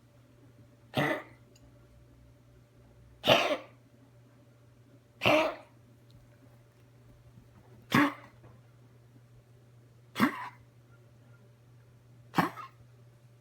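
A pet coughing: six short single coughs, one about every two seconds.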